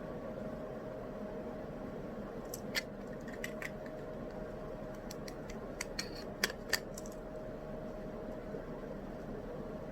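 Steady white-noise hiss with a constant low hum, and a scattered run of about a dozen small sharp clicks from about two and a half to seven seconds in, the kind made by handling small objects at a desk.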